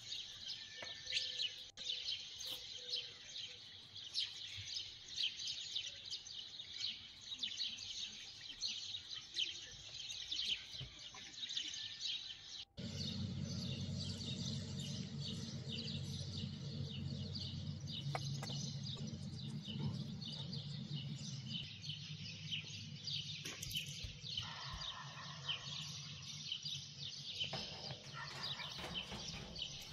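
Many birds chirping in quick, overlapping calls. About thirteen seconds in, the sound cuts out for an instant, and a low steady hum runs under the chirping after that.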